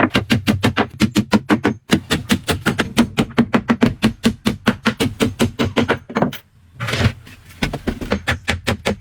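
Rapid, regular tapping knocks, about six or seven sharp strikes a second. They pause briefly twice, the longer pause a little past the middle, with a steady low hum underneath.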